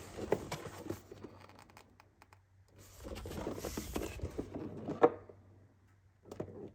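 Packaging rustling and crinkling as a new tool is unpacked and handled, in two stretches with a sharp click near the end of the second.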